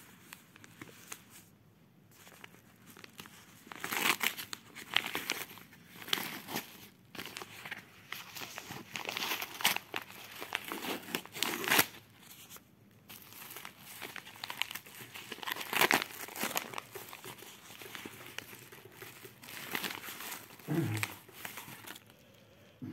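Paper mailing envelope being torn open and its paper and plastic packaging crumpled and crinkled by hand, in irregular bursts of rustling that begin a few seconds in.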